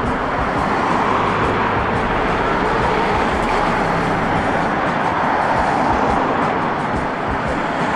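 Road traffic passing close by: cars and a box truck driving past with steady tyre and engine noise.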